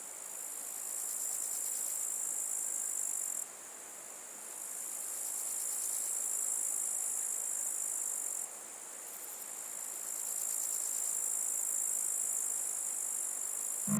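Steady, high-pitched insect chorus chirring with no let-up. It drops suddenly in level twice, about a quarter and about three-fifths of the way through, and builds back up each time.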